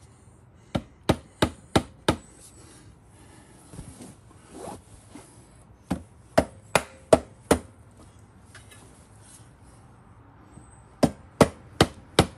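Rubber mallet tapping a Segway X2 gearbox's metal housing onto its studs to seat it flush. The knocks come in three runs of four or five sharp blows, about three a second.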